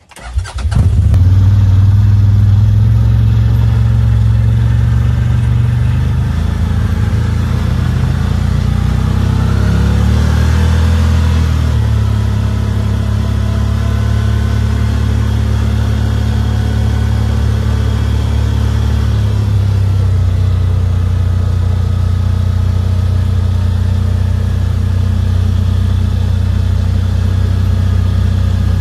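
CFMoto ZForce 950 side-by-side's V-twin engine running as the machine drives along, cutting in sharply about half a second in. Its pitch shifts up and down between about six and twelve seconds in, then holds steady.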